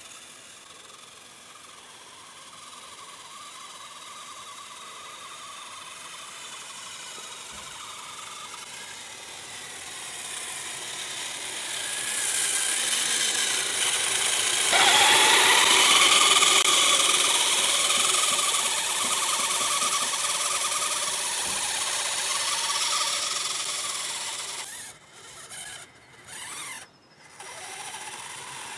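Electric motor and rubber tracks of a Kyosho Blizzard RC snowcat driving through wet snow. The whine and track noise grow louder over several seconds and then hold steady. Near the end it drops away sharply a few times as the throttle is let off.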